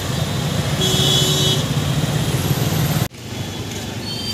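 Road traffic noise in a jam, heard from a scooter: a steady low rumble of engines, with a horn sounding briefly about a second in. About three seconds in the sound breaks off sharply, and quieter street noise follows.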